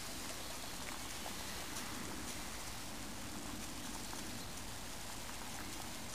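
Water with nettle leaves boiling in a metal mess tin over a small camp stove: a steady hiss with scattered faint pops.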